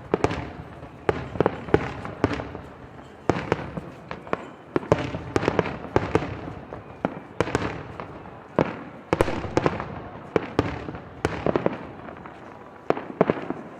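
Aerial fireworks bursting in quick, irregular succession: many sharp bangs, some in tight clusters, each followed by a short echo.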